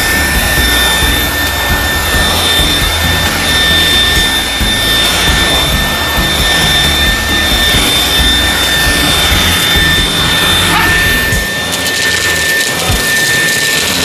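Xiaomi Dreame V11 cordless stick vacuum running with its bedding-cleaning attachment, a steady high motor whine over a scrubbing rub as the head works over the bedding.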